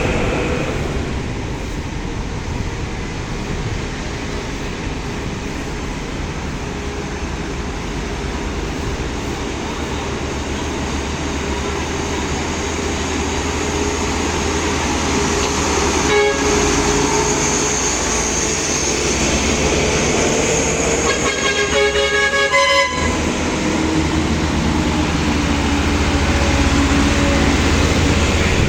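Road traffic with vehicle engines running steadily. About three-quarters of the way through, a horn sounds in a quick series of short toots.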